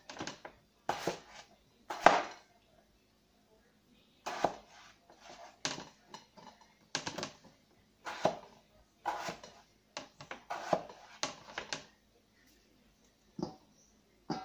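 Chef's knife cutting raw potatoes into wedges on a plastic cutting board: about twenty irregular knocks as the blade goes through the potato and meets the board. The cutting stops about twelve seconds in, with one last knock a second or so later.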